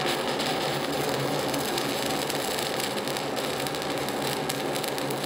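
Shielded metal arc (stick) welding with a 3/32-inch 6013 electrode at 80 amps, run vertical-up on a T-joint: the arc gives a steady crackling sizzle.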